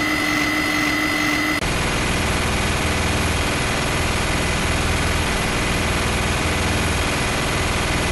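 Gatling gun sound effect: a steady whine as the rotary barrels spin, then about a second and a half in, a continuous stream of very rapid gunfire.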